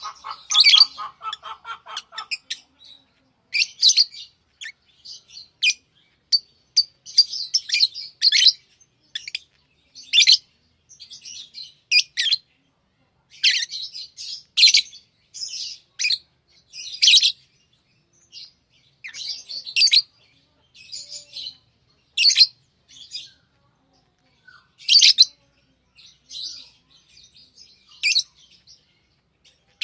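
Pet lovebirds chirping: short, sharp, high chirps at irregular intervals, about every one to two seconds, with a lower buzzy chatter during the first two seconds.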